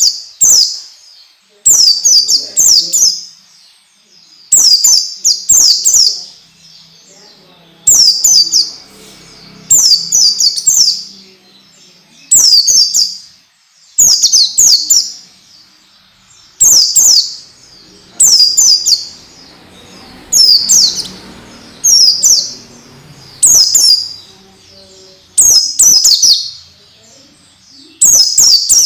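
White-eye (pleci) song: loud, short phrases of rapid, high twittering notes, repeated about every one and a half to two seconds.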